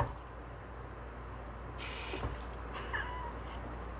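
A cat giving one short, faint meow about three seconds in, its pitch falling.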